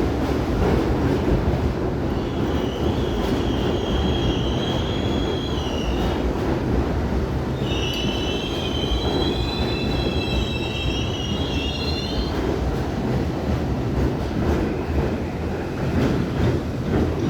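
New York City subway train running through the station with a steady rumble. Its wheels squeal in high, wavering tones twice: from about two to six seconds in, then again from about eight to twelve seconds.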